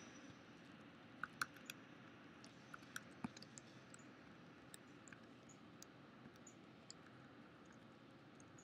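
Faint keystrokes on a computer keyboard as numbers are typed into a spreadsheet: scattered short clicks, a few louder ones in the first three seconds, then fainter and sparser ones, over a low hiss.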